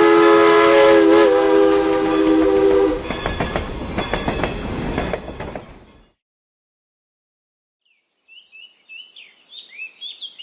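Train sound effect: a long multi-tone train horn that stops about three seconds in, then train wheels clattering over the rails and fading out near six seconds. After about two seconds of silence, birds start chirping.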